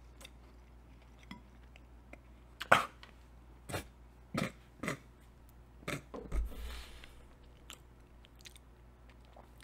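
Person chewing a bite of dry, unfrosted Pop-Tart pastry: scattered soft crunches and mouth clicks. A short breathy throat sound comes about six and a half seconds in.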